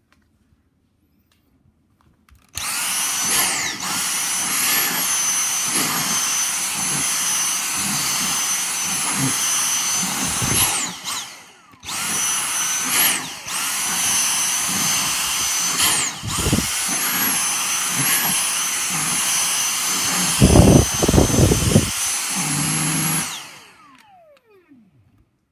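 Handheld vacuum cleaner running close by, a steady motor whine that dips in pitch now and then as the nozzle meets the cat's fur. It starts a couple of seconds in, cuts out briefly about halfway, starts again, and is switched off near the end, with a few knocks just before.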